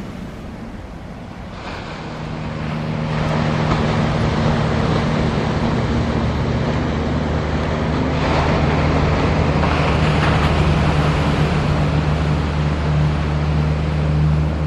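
Surf and wind for about two seconds. Then a Boeing 777-300ER's GE90 jet engines at takeoff thrust come in, a loud steady roar with a low hum, building over the next two seconds and holding as the airliner makes its takeoff roll.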